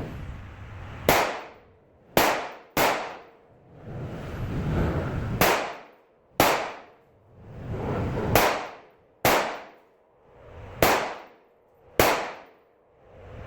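Nine single gunshots from a 9mm Glock 17 pistol in a Micro Roni carbine conversion kit, fired at uneven intervals of about one to two and a half seconds, each with a short echo trailing off.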